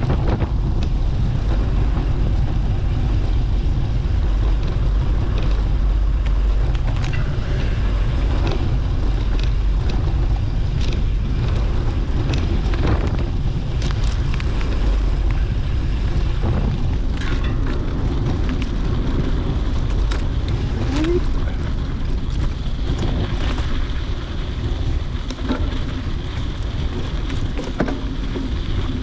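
Wind buffeting the microphone: a steady low rumble, with scattered faint clicks and ticks over it.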